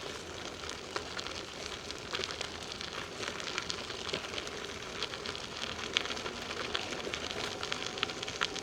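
Bicycle coasting down a hill: a steady rolling noise from the tyres on the trail, with many small irregular crackles and ticks.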